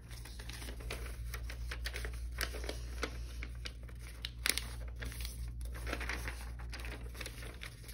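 A sheet of paper being folded by hand along its lines and pressed into creases: irregular rustling and crinkling with short scrapes as the folds are smoothed flat.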